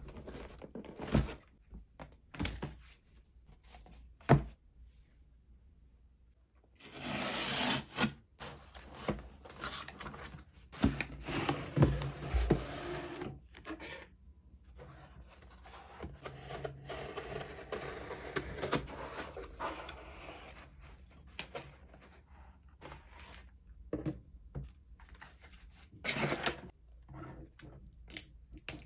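A cardboard shipping box being handled and opened on a desk: scattered thunks and taps, with louder stretches of scraping and rustling, the loudest about seven seconds in and more around twelve seconds and from about fifteen to twenty seconds.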